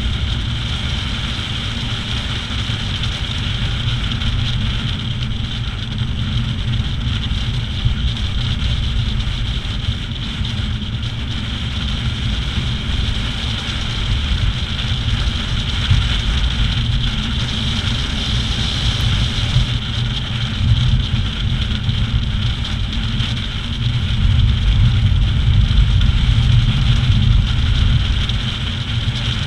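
Wind rushing over the microphone at downhill speed, with a steady low rumble of wheels rolling on asphalt. It grows louder for a few seconds near the end.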